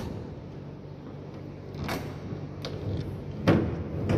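Metal clicks and clanks of a padlock and door hasp being handled, the loudest about three and a half seconds in, over a steady low hum.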